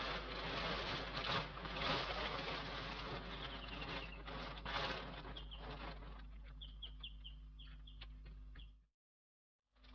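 A cover being pulled and gathered off the igloo dome, rustling and scraping, dying away after about six seconds. A bird chirps several times in quick succession over the second half. The sound cuts out abruptly near the end.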